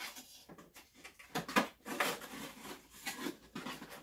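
Cardboard packaging of a camera box being handled: irregular rustling, scraping and light knocks as inserts and accessories are lifted out.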